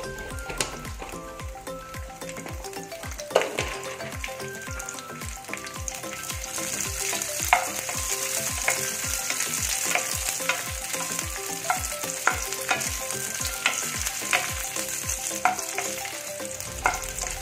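Cashew nuts and raisins sizzling as they fry in ghee in a nonstick frying pan, with a wooden spatula stirring and clicking against the pan. The sizzle grows stronger about six seconds in, over a regular low thump about twice a second.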